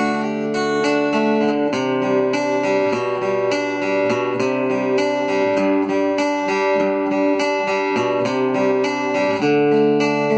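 Cort GA5F-MD acoustic-electric guitar played through its Fishman pickup into an amplifier as a dry signal, with no reverb or compressor. Chords ring with their notes picked one after another. The chord changes about two seconds in and again near the end.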